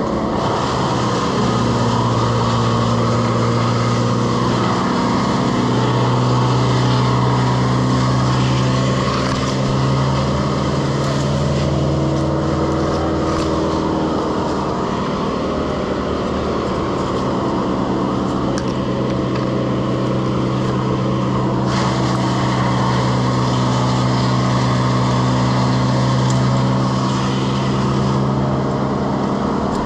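An engine running steadily at a fairly constant speed, its pitch shifting slightly now and then.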